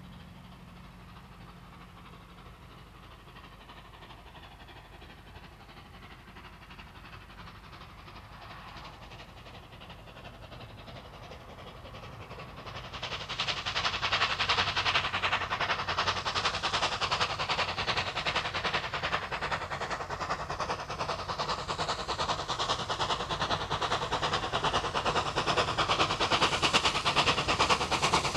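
NSW C38 class steam locomotive 3801 working a passenger train upgrade: a distant steady rumble at first, then its exhaust beat grows sharply louder about halfway through as it draws near, becoming a loud, rapid chuffing.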